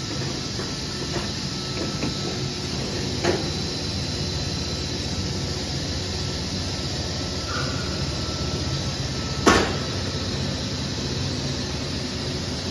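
HDPE plastic pipe extrusion line running: a steady machinery hum with a faint high whine. Two sharp knocks cut through it, a small one a few seconds in and a louder one later.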